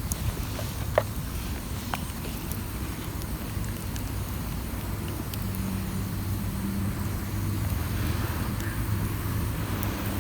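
An engine running steadily with a low, even hum, and a few sharp clicks in the first two seconds.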